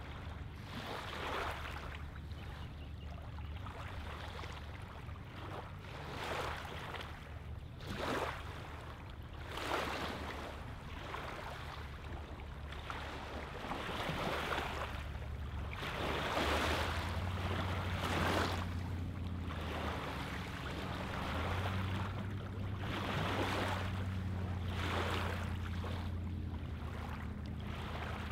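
Small waves lapping on a gravelly lake shoreline, a soft wash of water every second or two. A low steady drone runs underneath and grows stronger in the second half.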